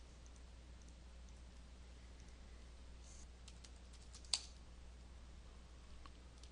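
A few soft computer keyboard keystrokes, with one sharp, louder key click a little over four seconds in, over a faint low hum.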